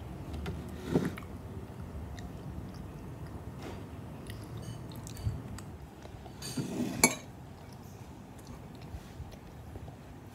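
Close mouth sounds of chewing and squishing soft tapioca pearls, with a few spoon clicks against a ceramic mug; the sharpest clink comes about seven seconds in.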